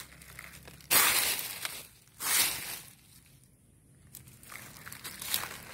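A hand scraping and rummaging through dry fallen leaves and leaf litter on the ground while gleaning dropped coffee beans: crackling rustles in two loud bursts, about a second in and about two and a half seconds in, then softer rustling near the end.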